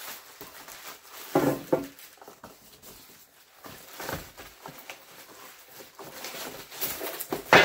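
Table saw parts being unpacked: irregular rustling and scraping of packaging, with a sharp knock near the end.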